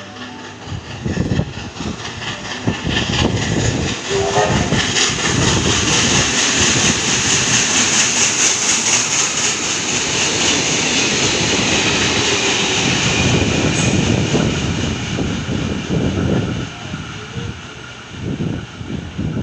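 NSW 32 class 4-6-0 steam locomotive 3265 and its train passing through a station. The sound swells as it approaches, is loudest for several seconds as it goes by with a dense low clatter, then fades as it runs away.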